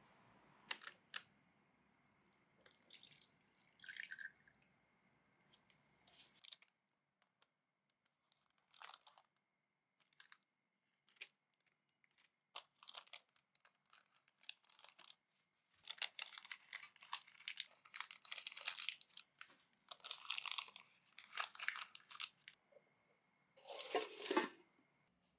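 Food-preparation handling sounds: intermittent soft crinkling and rustling with scattered small clicks and taps, thickest in the last third, with one louder rustle near the end.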